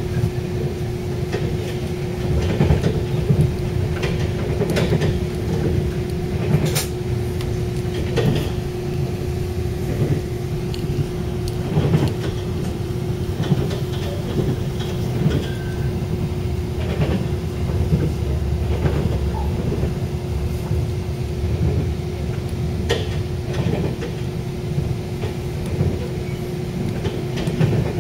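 Passenger train running at speed, heard from inside the carriage: a steady low rumble with a constant hum and irregular knocks and clicks from the wheels on the track.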